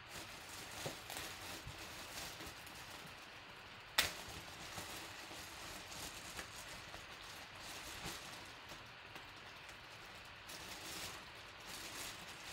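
Clear plastic bag crinkling and rustling in irregular crackles as hands pull it open around a jersey, with one sharp snap about four seconds in.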